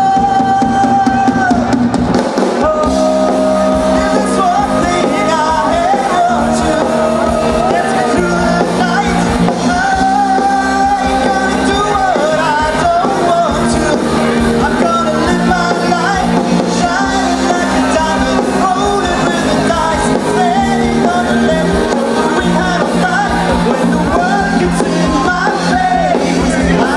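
Live rock band playing loud through a PA, a male singer over electric guitars, bass, drums and keyboard.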